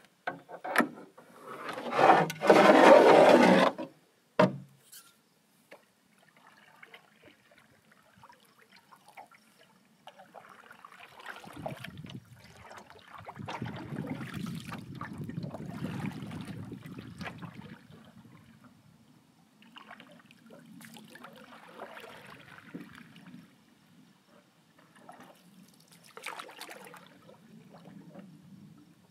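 Wooden canoe being handled and paddled: a loud scraping rub against the wooden hull about two seconds in, with a few knocks, then paddle strokes swishing and dripping in calm water.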